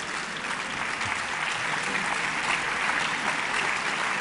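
Audience applauding: dense, steady clapping from a large crowd that swells slightly in loudness.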